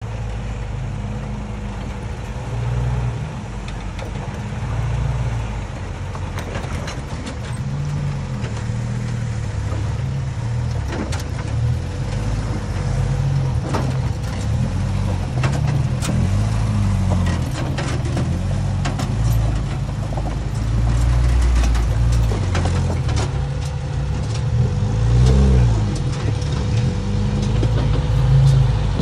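Off-road jeep engines running at low revs, rising and falling in pitch as the jeeps crawl over boulders, with scattered clicks and knocks of tyres and chassis on rock.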